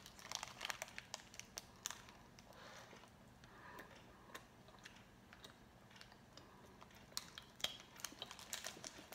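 Faint crinkling of a foil-lined snack wrapper handled while a soft chocolate cake is eaten from it: scattered small clicks and rustles, busiest in the first couple of seconds and again near the end.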